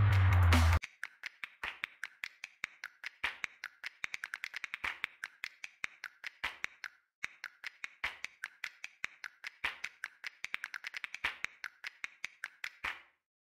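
Music cuts off under a second in. It is followed by a long run of sharp, quick clicks, several a second and unevenly spaced, with a short pause about halfway through.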